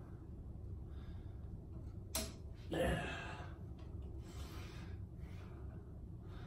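Quiet studio room tone with a steady low hum. About two seconds in there is a sharp click, followed a moment later by a short breathy rush of noise.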